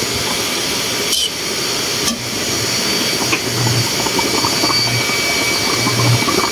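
Steady hissing kitchen noise at the stove while a wok of fish soup simmers, with a low hum that comes and goes. Two faint knocks, about one and two seconds in, as the ladle touches the wok.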